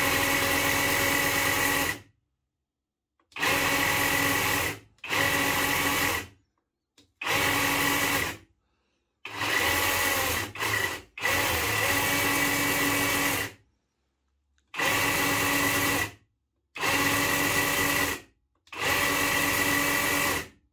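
Parkside cordless reciprocating saw run with no load in about ten short bursts of one to two seconds each. Each burst is a steady motor whine that starts and stops abruptly as the trigger is pulled and released.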